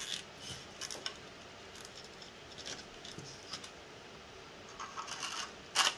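Scattered small clicks and rustles of nylon zip ties being threaded and pulled through 3D-printed plastic frame parts, with a quick run of clicks a little before the end and one louder rustle near the end.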